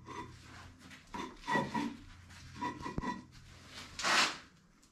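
A 6,000 lb Brown & Sharpe No. 2 heavy milling machine sliding on oiled steel plates as it is shifted, with short intermittent scraping and creaking bursts, a sharp click about three seconds in and a brief harsher scrape near the end.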